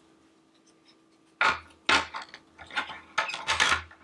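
Wooden diamond-painting coasters clacking against each other and rattling in a wire coaster holder as they are handled and stacked. Two sharp knocks about a second and a half in, then a run of uneven clacks.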